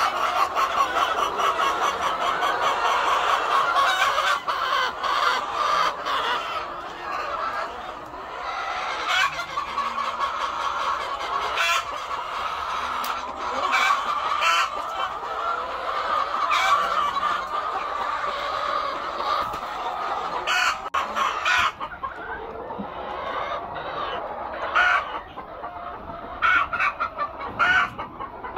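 A flock of white laying hens clucking and calling continuously, many birds overlapping, with scattered short sharp clicks among them and a few louder outbursts in the second half.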